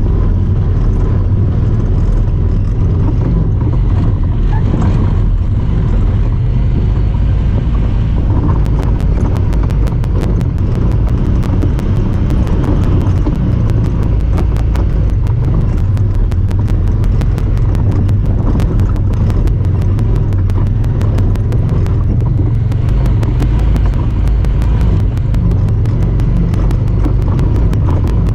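Honda Talon 1000R side-by-side's parallel-twin engine running under way with a steady low rumble. From about eight seconds in until near the end, a fast, even ticking rides over it, a noise made by the camera itself.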